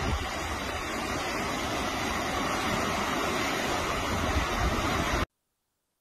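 Steady rushing of floodwater from the River South Esk spilling over its flood defences into a street; the sound cuts off abruptly a little over five seconds in.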